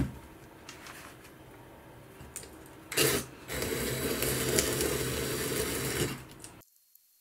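Cordless drill with a sanding attachment running very slowly, sanding the surface of a carbon-fibre part. It starts about three seconds in and runs steadily for about three seconds before stopping.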